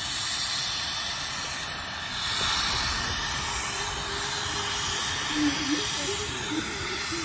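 Replica Union Pacific No.119 4-4-0 steam locomotive giving off a steady hiss of steam, swelling slightly a couple of seconds in.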